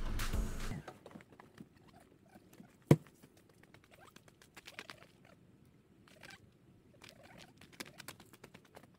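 Faint footsteps crunching on loose stones and gravel, with scattered clicks and scrapes, and one loud thud about three seconds in. Background music ends within the first second.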